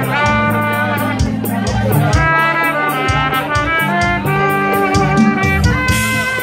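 Live trumpet playing a melody of held and moving notes over acoustic guitar, with drumsticks striking a steady rhythm.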